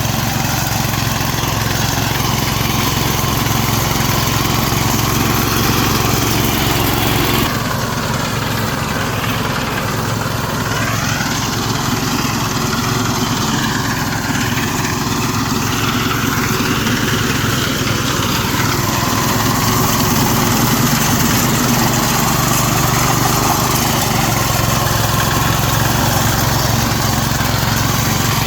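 Engine of a rice reaper machine running steadily while working in the field, its sound shifting about seven seconds in.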